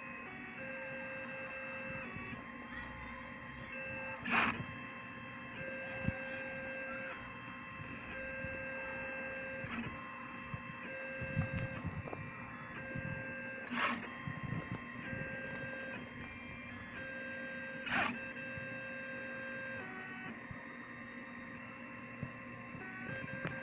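Stepper motors of a CNC laser engraver whining as the gantry moves the laser head along a circuit trace pattern: steady tones that switch pitch every second or two as the head changes direction and speed, with a few sharp clicks.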